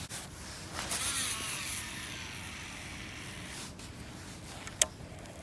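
A large baitcasting reel's spool whirs as a glide bait is cast, its whine falling in pitch as the spool slows over about two seconds. A single sharp click comes near the end.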